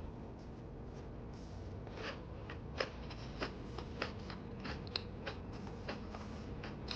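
Irregular sharp, crisp crunches and clicks, a dozen or so, over a steady low hum.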